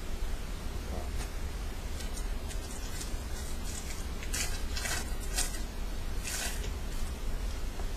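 Trading cards being handled, with a few short dry scraping rustles bunched about four to six and a half seconds in, over a steady low hum.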